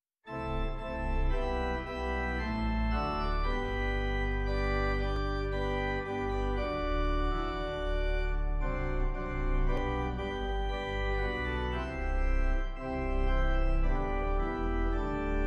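Instrumental background music of long-held chords that change every second or two over a steady deep bass.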